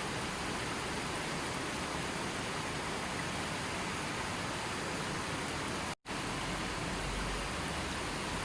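Steady rushing of water, an even hiss spread across all pitches, cut out to silence for a split second about six seconds in and then resuming as before.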